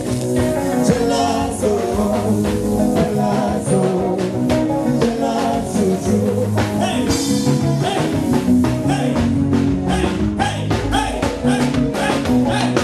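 Live band music at a sound check: drums and other instruments playing a steady beat, with singing.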